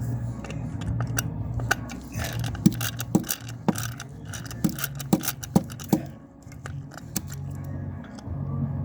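A hand tool turning a long T15 Torx screw out of metal: irregular sharp clicks about every half second to a second, with brief scraping, over a low steady hum.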